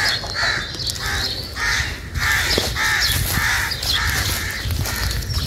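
Crows cawing, a long run of harsh caws a few each second.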